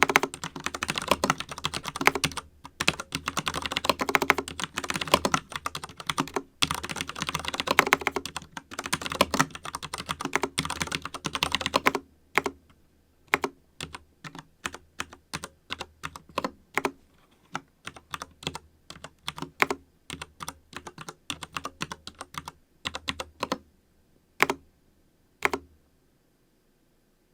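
Typing on a FILCO Majestouch mechanical keyboard with Cherry MX Brown switches. Brisk continuous typing runs for about twelve seconds, then slows to scattered single keystrokes that stop shortly before the end.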